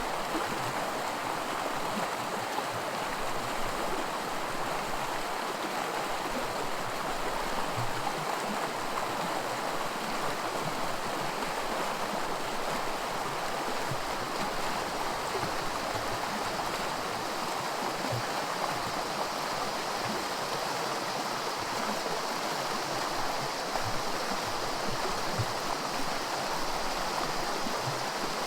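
A small woodland creek running over rocks in a shallow riffle of white water: a steady, unbroken rush of water.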